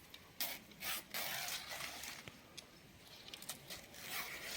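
Dry rustling and crinkling of banana leaves being handled and folded, in a few short bursts with a longer stretch a little after a second in.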